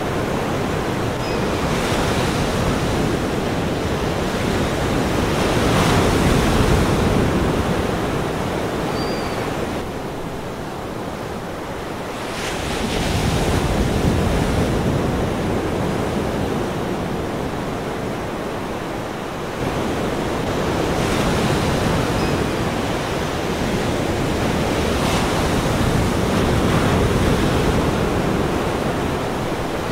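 Ocean surf: waves breaking and washing in, the rush of water swelling and easing off roughly every six to eight seconds.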